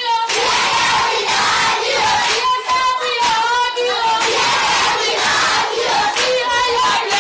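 A crowd of schoolchildren cheering and chanting together in high voices, with held unison calls rising out of the general shouting several times.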